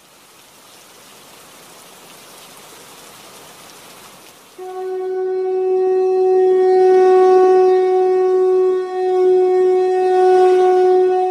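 A soft rushing hiss for about four seconds, then a conch shell (shankha) is blown in one long steady note that starts suddenly and holds on, much louder, with a brief dip partway through.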